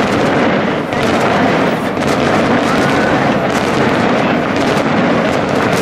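Aerial fireworks display: a rapid, continuous barrage of shell bursts and crackling, one report after another with no pause.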